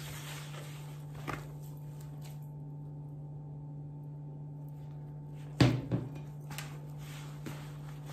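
Hands kneading stiff dough in a plastic bowl, with soft rubbing and handling noises over a steady low hum. There is one loud knock about five and a half seconds in, and a smaller one a second in.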